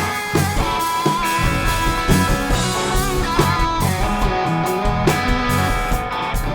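Rock band music: electric guitar lines over bass and a drum kit keeping a steady beat.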